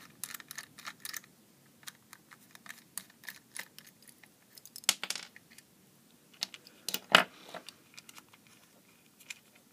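Small screwdriver prying at a plastic controller box and its lid: scattered light plastic clicks and scrapes, with a louder clack about five seconds in and the loudest about seven seconds in.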